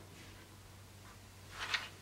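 One short scrape of a small metal hand tool on the wooden scabbard core, near the end, over a faint steady low hum.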